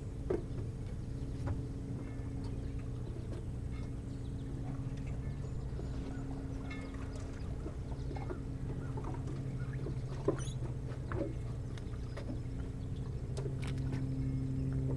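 Low, steady engine hum of a distant motorboat, growing a little louder near the end. A few faint short chirps and clicks sound over it, the sharpest about ten seconds in.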